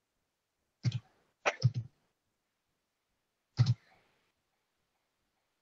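Short, sharp noises through a video-call microphone, in three clusters: one about a second in, a quick double about a second and a half in, and one about three and a half seconds in.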